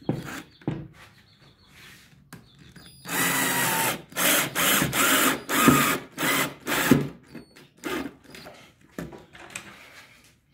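Red Mondial 12 V cordless drill-driver driving a screw into a wooden joint, run in a string of short stop-start bursts, the longest lasting about a second a few seconds in.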